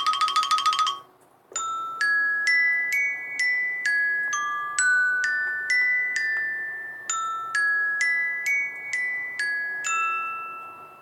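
iPhone ringtone: a glockenspiel-like melody of single struck notes, about two a second, each ringing out before the next. In the first second, a fast pulsing tone from the preceding ringtone ends.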